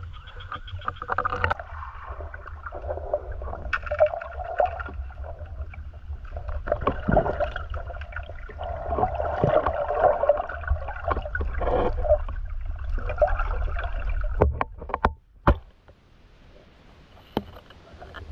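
Water sloshing and gurgling around the camera as a spearfisher dives and swims. The churning stops abruptly about fourteen seconds in, followed by a few sharp clicks and then a quiet underwater hiss.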